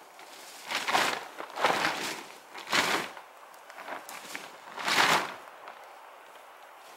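A tarp being shaken out and spread, its fabric flapping and rustling in a handful of sharp swishes, the loudest about five seconds in.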